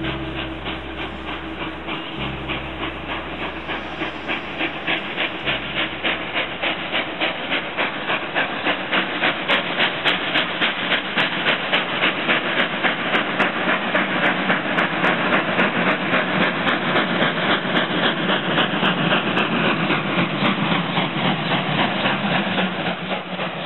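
Steam locomotive working hard, its exhaust chuffing in a rapid even rhythm of about three beats a second over a steady hiss of steam. The chuffing grows louder over the first several seconds, then holds steady.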